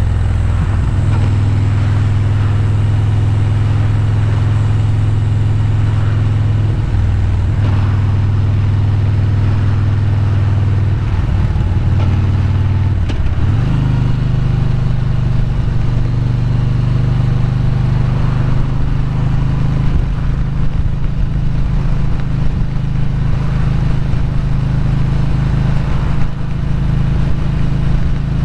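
Motorcycle engine running steadily while riding at cruising speed. The engine note changes a few times and steps up in pitch about halfway through, then holds steady.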